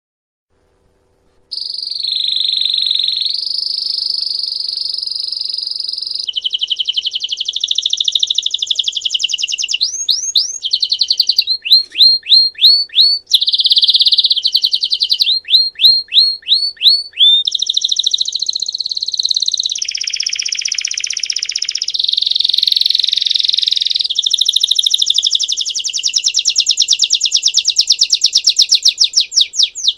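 Domestic canary (Belgian type) singing a long, varied song that begins about a second and a half in. It moves through steady trilled rolls, runs of quick falling notes about five a second in the middle, and a fast trill near the end.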